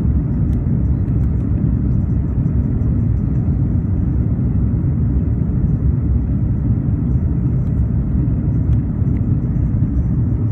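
Steady low rumble inside the cabin of an Airbus A340 airliner climbing after takeoff: its jet engines at climb power and air rushing past the fuselage, heard from a window seat over the wing.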